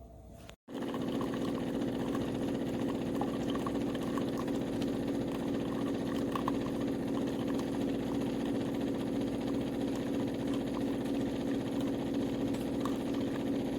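De'Longhi TrueBrew coffee maker running, a steady mechanical hum with faint scattered ticks, starting abruptly about half a second in.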